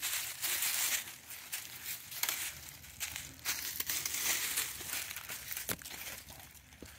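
Dry fallen leaves crunching and rustling in several surges, with a few short sharp clicks.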